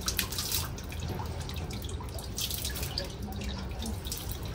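Water dripping and trickling.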